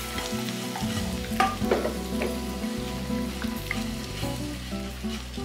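Chopped onions sizzling as they drop into hot oil in a pan, a steady frying hiss with a few light clicks.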